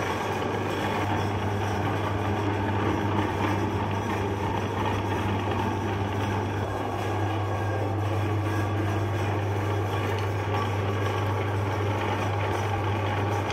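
Electric meat grinder running steadily with a low motor hum as chocolate ice cream bars are fed through it and pushed out of the grinder plate.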